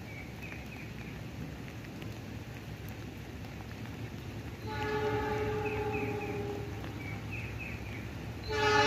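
Horn of an approaching diesel locomotive: a steady chord-like blast of about two seconds around five seconds in, then a louder blast starting near the end, over a steady low rumble.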